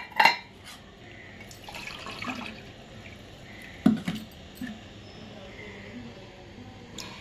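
Water poured from a steel cup into a pot of washed rice, splashing and trickling, with two short louder moments, one just after the start and one about four seconds in.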